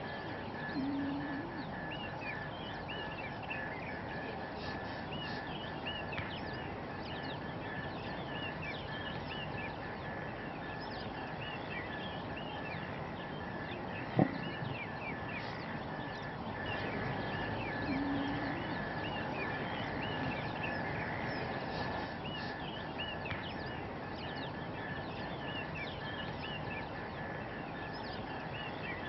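Outdoor nature ambience: many birds chirping in short calls over a steady high drone and background hiss, with a single sharp click about halfway through.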